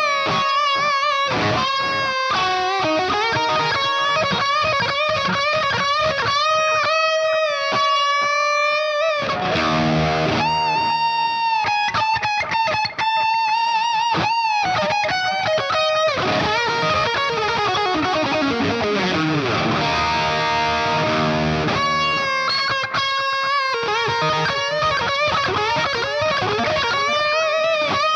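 Frankenstrat-replica electric guitar played with distortion: lead phrases of held, bent notes with vibrato and quick runs, with a long falling pitch dive midway.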